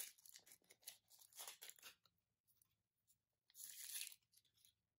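Thin foil wrapper being peeled off a Kinder chocolate egg: quiet crinkling and tearing in several short bursts, with a longer burst about three and a half seconds in.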